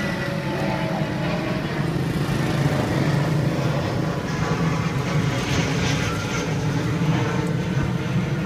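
Steady low hum of a motor vehicle engine running, with brief crinkling of plastic bags about halfway through.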